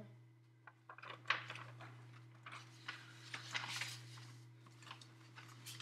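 Sheets of paper rustling and being shuffled in the hands, with small scattered knocks, over a steady low hum.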